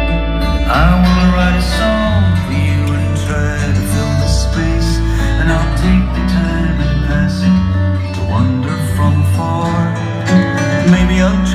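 A song playing back through Loewe 'Sound by Bose' floor-standing speakers, in a stretch between sung lines, with guitar over a strong, steady bass.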